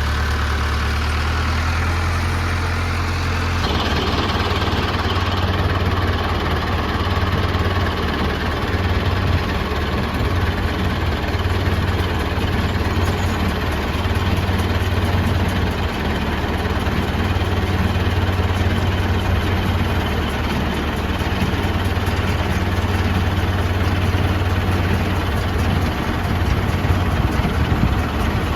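Farm tractor engine running steadily under a deep, even hum. The sound changes character about three and a half seconds in, then carries on steadily.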